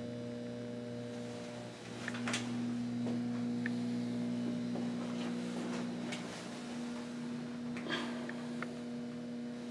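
Steady electrical hum, a low drone with a few overtones, in a small tiled bathroom, with a few faint clicks.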